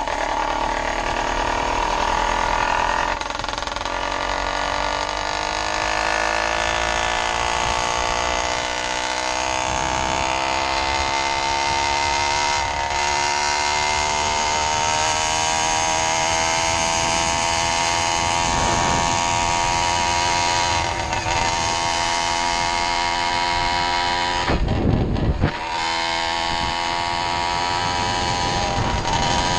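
Custom GT90 two-stroke motorized-bicycle engine with case-reed induction, Project X cylinder and MZ65 expansion pipe, running under load while riding. Its pitch dips about three seconds in, then climbs steadily for some fifteen seconds as the bike gains speed and holds high to the end, with a brief rush of noise a few seconds before the end.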